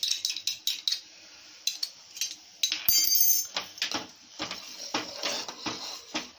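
A metal spoon tapping and scraping against a small glass bowl, a sharp ringing clink about three seconds in, then a metal ladle stirring and scraping in a non-stick pan of soup with quick repeated strokes.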